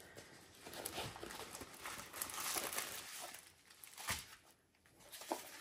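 Plastic crinkling and rustling as a rolled diamond-painting canvas is slid out of its clear plastic sleeve and pressed flat by hand, its plastic cover sheet crackling. There is a sharper rustle about four seconds in.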